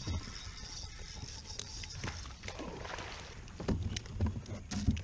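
Handling noise on a plastic kayak: rustling and light water noise, with several dull knocks in the second half as the angler works a spinning rod.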